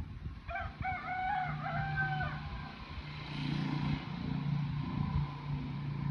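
A rooster crows once, about half a second in, a stepped call lasting roughly two seconds. A low steady hum runs underneath from about a second and a half in.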